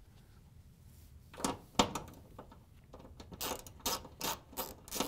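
A 3/8-inch socket ratchet loosening a hex nut on a range terminal block stud. There are a couple of sharp metal clicks about a second and a half in, then a run of quick ratchet clicks, two or three a second, from about three seconds on.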